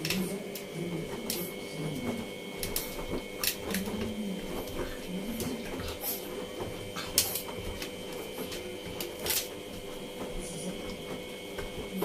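Front-loading washing machine running, a steady motor hum and whine as the drum turns the laundry. Scattered clicks and taps come over it, the sharpest about 3.5, 7 and 9 seconds in.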